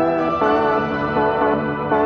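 Background music: sustained keyboard-like chords, with the chord changing about half a second in.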